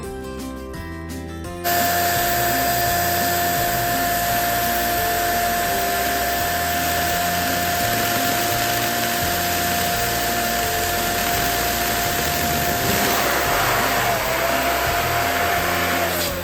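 Electric balloon pump running steadily with a whining hum, inflating a balloon. It switches on abruptly a couple of seconds in, dips slightly in pitch near the end, then winds down as it is switched off.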